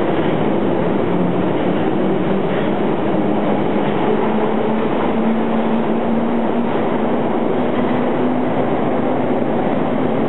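London Underground tube train pulling out of the platform and running off into the tunnel: a loud, steady rumble of wheels on rail with a low hum that rises slightly in pitch as it picks up speed.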